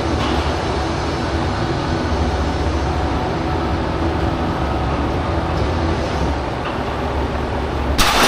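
Steady low rumbling noise while a heavily loaded strongman yoke is carried, then a loud crash about eight seconds in as the yoke is set down onto the floor.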